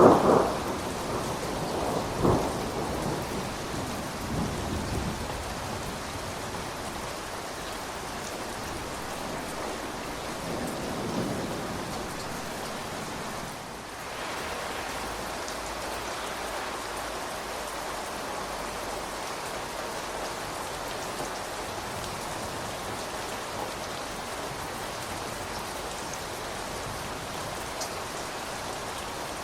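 Thunder rumbling and fading away over the first few seconds, with a second sharper clap about two seconds in, over steady rain falling on surfaces.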